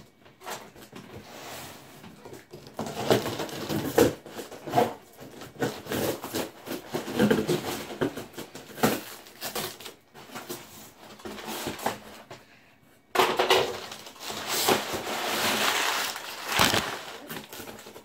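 A large cardboard shipping box being cut open and handled: scattered scrapes, knocks and crinkling of cardboard and packing. About 13 seconds in comes a longer run of rustling and tearing lasting a few seconds.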